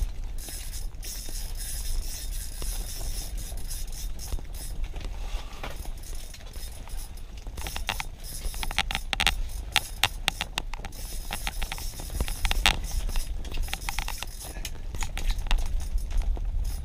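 Ice-fishing reel clicking and rattling in irregular runs of ticks while a hooked fish is fought, the ticks thicker in the second half, over a steady low rumble.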